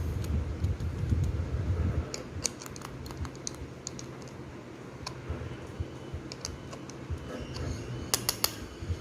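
Scattered light clicks and taps of small hard objects being handled, with a quick run of four clicks near the end; a low rumble underlies the first two seconds.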